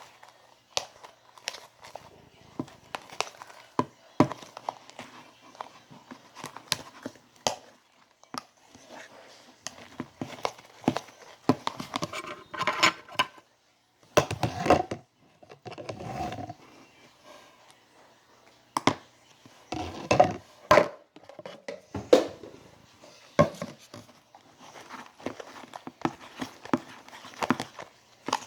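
Freshly activated homemade slime being stirred in a container: irregular sharp clicks and knocks with stretches of rustling.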